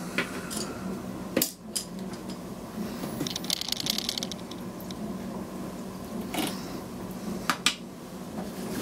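Watercolour painting tools being handled as the artist gets ready to mix paint: a sharp knock about a second and a half in, a short scratchy rustle around three and a half seconds, and a few light taps and clicks near the end.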